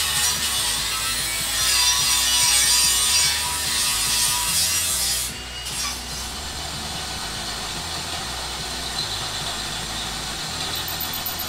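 AEG cordless angle grinder cutting steel, a harsh high-pitched grinding that stops suddenly about five seconds in. A quieter, steady drill boring through the steel chassis rail follows.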